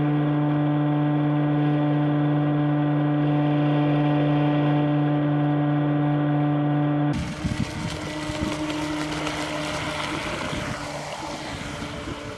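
RC bait boat's electric motors running at a steady, unchanging pitch, heard muffled from on board the boat. About seven seconds in this cuts abruptly to a hiss of water spray and wind as the boat speeds across the water, with the motor whine faint beneath.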